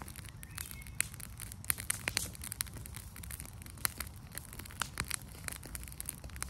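Paper and household garbage burning in a burn bin, crackling with irregular sharp pops over a low rumble.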